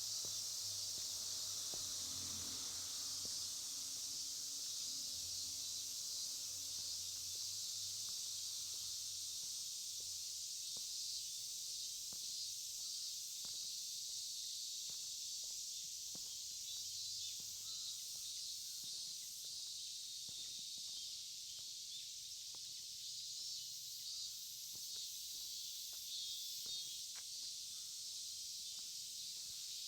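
Steady, shrill chorus of insects, with a faint low hum in roughly the first ten seconds. Soft footsteps tick about once a second through the second half.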